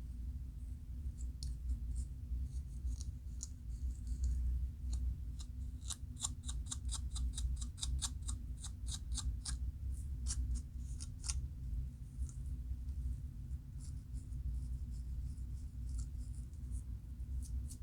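Scratching at a flaky, dandruff-covered scalp: short dry scrapes, with a fast even run of about four to five strokes a second from about six seconds in until past eleven seconds. A low steady hum lies under it.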